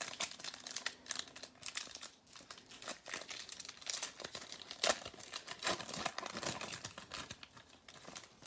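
Foil baseball card pack wrapper crinkling as it is torn and peeled open by hand: a continuous run of sharp crackles, loudest about five seconds in.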